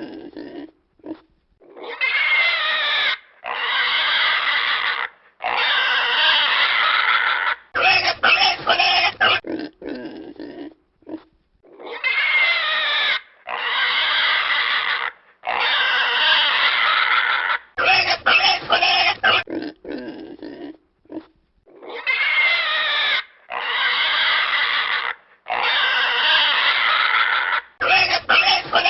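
Pig squealing in long calls of one to two seconds, three in a row, then a run of quick short grunts. The same sequence repeats about every ten seconds.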